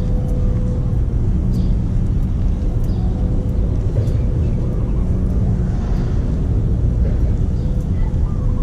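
Steady low rumble of street traffic, with a faint steady hum running through it.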